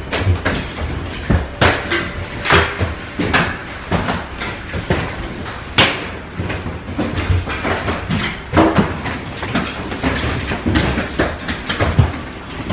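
Heavy hail pelting a window and house: many irregular hard knocks of hailstones striking the glass, over a steady rushing noise of the storm.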